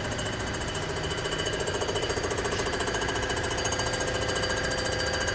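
Comec ACF200 surfacing machine making a cut across a Rambler 327 cast-iron cylinder head: a steady machine drone with a fast, even pulsing as the cutter sweeps the deck surface.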